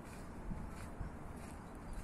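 Quiet outdoor ambience: a steady low rumble with two soft thumps, about half a second and a second in.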